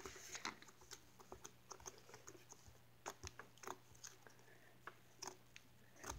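Homemade slime being poked and pressed with fingers, giving soft, faint, irregular little pops and clicks.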